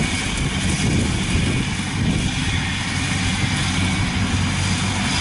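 Engine of a tracked rice carrier running steadily as it crawls through a muddy, waterlogged rice field, a continuous low drone.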